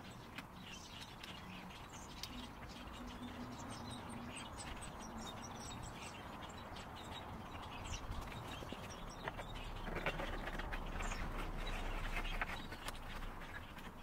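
Faint outdoor ambience with birds chirping, scattered small clicks, and a brief louder rustle about ten seconds in.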